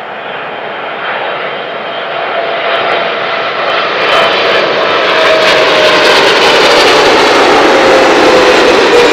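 Jet airliner on final approach passing low overhead: engine noise growing steadily louder, with a whining tone that slowly falls in pitch.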